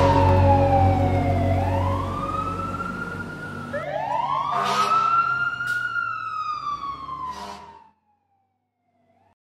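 A wailing siren sliding slowly down and up in pitch, over a last held rock chord that rings out. The chord stops at about eight seconds in and the siren tails off just after.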